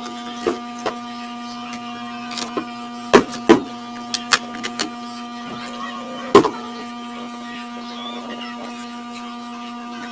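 A few sharp clicks and knocks of hands handling laptop parts, the loudest about three, three and a half and six seconds in, over a steady electrical hum.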